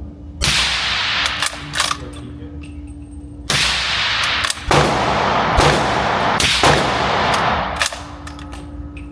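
Rifle fitted with a Q Black Thunder Chicken suppressor firing about seven shots at an irregular pace, each shot ringing on in a long echo in the indoor range. A steady low hum runs underneath.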